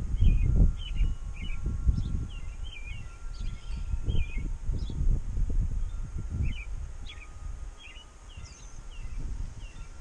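Small songbirds chirping: many short, quick chirps scattered throughout. Underneath, the loudest sound is an uneven, gusty rumble of wind on the microphone.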